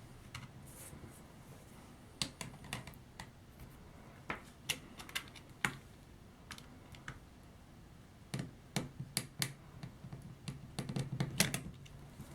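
Needle-nose pliers and a small screw clicking and scraping against a seized screw and nut in a plastic action-figure knee joint: irregular sharp clicks, scattered at first and coming in quick bunches in the second half.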